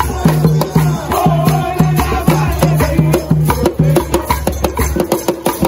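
Ghanaian traditional percussion and song: a large pegged hand drum, sticks striking a bamboo tube and other percussion keep a fast, even beat while voices sing over it.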